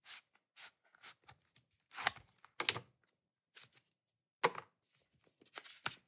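Small cardboard product box being handled and unpacked: irregular short scrapes and taps as the inner box comes out of its printed sleeve and its lid is worked open.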